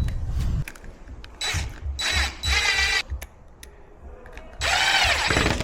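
Power drill-driver running in four short bursts, its motor pitch rising and falling as it drives screws, the longest burst near the end. A few light clicks of lock hardware come between the bursts.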